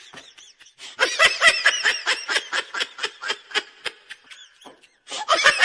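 A person laughing in quick, rapid bursts that trail off, then laughing again near the end.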